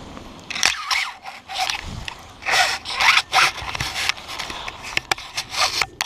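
Paraglider landing on dry grass: a run of sharp scraping, rustling bursts as the harness, lines and nylon wing brush and drag over the dry grass, after a little wind noise at the start. The sound cuts off suddenly at the end.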